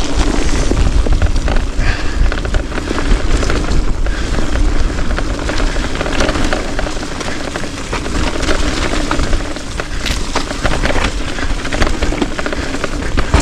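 Heavy wind rumble buffeting a GoPro action camera's microphone, mixed with a dense, steady clatter of small knocks and rattles from moving over a rough trail.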